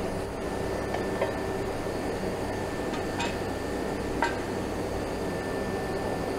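A few light metallic clinks of tools on the log splitter's steel cylinder mount and frame as the hydraulic cylinder is being unbolted, over a steady low hum.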